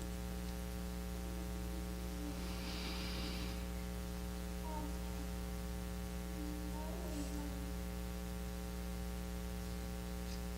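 Steady electrical mains hum in the audio line, with a brief soft hiss about three seconds in.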